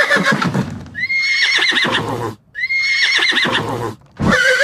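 Horse neighing, the same whinny repeated with short breaks: one call trailing off at the start, two full whinnies, and another beginning near the end, each with a quavering, wavering pitch.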